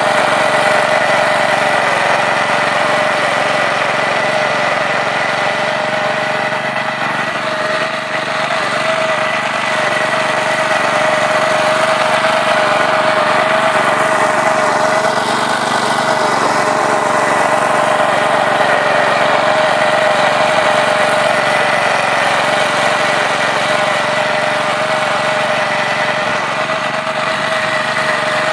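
Small petrol engine of a vertical-tine Laplosh cultivator running steadily under load as its tines dig through damp soil.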